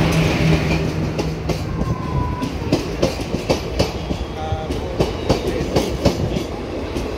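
Passenger coaches of an arriving express train rolling past, their wheels clacking over rail joints about three times a second. The WAP-4 electric locomotive's steady hum fades out about a second in, and a couple of brief faint squeals come in between the clacks.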